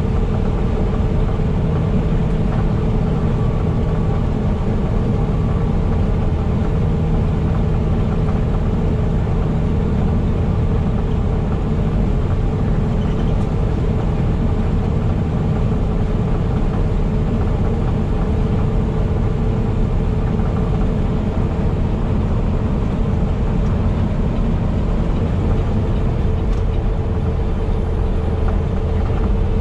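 Semi truck under way: a steady, unchanging engine drone with road noise.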